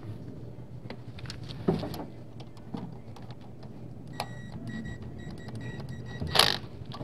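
Light clicks and clatter of hand tools and parts being worked in a VW Beetle's engine bay around the distributor, with one louder clank near the end, over a steady low hum.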